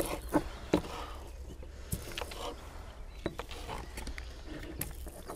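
Scattered light clicks and taps of kitchen utensils and dishes on a wooden table as food is cut and handled, irregular and spaced a fraction of a second to a second apart, over a steady low rumble.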